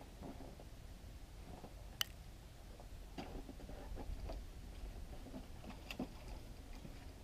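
Faint, scattered knocks and clicks of split firewood being handled and stacked on a sled, with one sharper click about two seconds in, over a low steady rumble.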